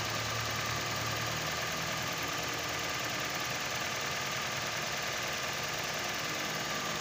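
Toyota Corolla AE101's 4A-FE 1.6-litre twin-cam 16-valve fuel-injected four-cylinder engine idling steadily. It runs very smoothly, with no sign of trouble.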